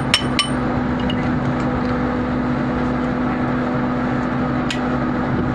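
Steady machinery drone with a constant hum from running plant equipment. Over it come sharp, ringing metal clinks of a socket wrench on the steel compressor housing bolts: two just after the start and one near the end.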